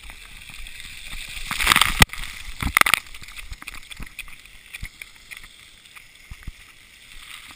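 Water splashing and spraying close to the camera, with a swelling rush of spray about two seconds in, a sharp knock just after, and another splash about a second later.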